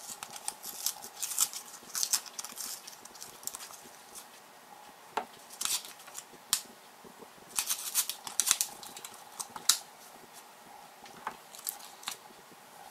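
Plastic blister pack with a paper card backing crinkling, crackling and tearing as a small pack of erasers is pried open by hand, in clusters of sharp crackles with short pauses between.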